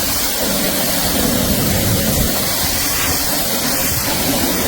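QSMYOYE 2200 W electric pressure washer running, its high-pressure water jet spraying with a loud, steady hiss.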